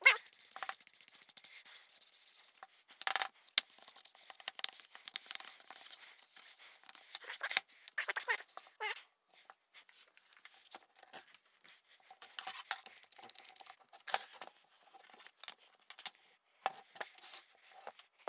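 A brush scrubbing wood glue across plywood, a steady scratchy sound for the first few seconds. After that come scattered clicks, knocks and scrapes as metal C-clamps and quick-grip bar clamps are handled and set on the glued wood.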